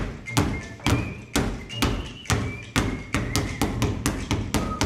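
Two basketballs being dribbled on a hard tiled floor, each bounce a sharp thud. The bounces come about twice a second at first, then quicken to about four or five a second in the second half.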